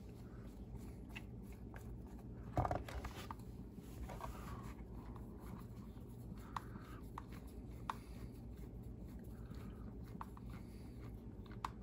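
Small hand screwdriver driving flathead screws into a sway bar mount on a plastic RC car chassis: faint scraping and scattered light clicks, with one louder knock about two and a half seconds in.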